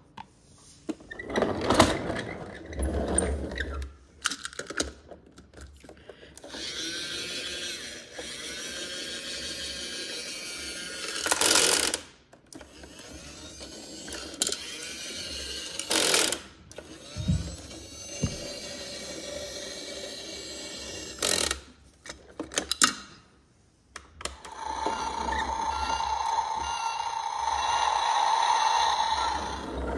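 Battery-powered toy garbage truck running its motorized mechanism: a steady whir in four runs of a few seconds each, the last with a steady whine. Between the runs come sharp clicks and knocks of plastic parts being handled and buttons pressed.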